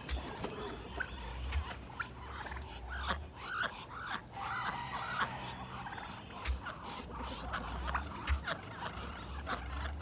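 Domestic fowl calling in short, repeated bursts from males in courtship display, with a low rumble that comes and goes underneath.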